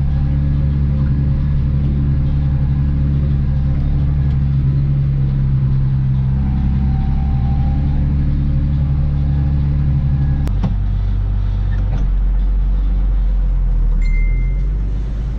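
Deutz-Fahr tractor engine running steadily while driving, heard from inside the cab. About two-thirds in there is a click and the engine note suddenly drops lower, and a short high beep sounds near the end.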